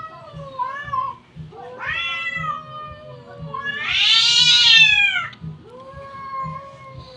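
Two domestic cats yowling at each other in a standoff: long, wavering wails that rise and fall in pitch. The loudest comes about four seconds in, followed by a lower, quieter drawn-out wail near the end.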